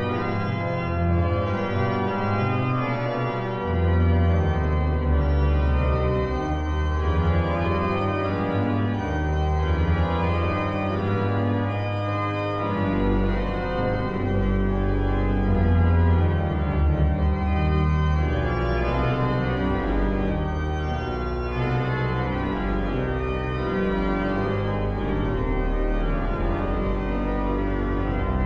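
Pipe organ of the newly refurbished sanctuary organ playing a piece in full sustained chords that change every second or so; very deep pedal bass notes come in about halfway through.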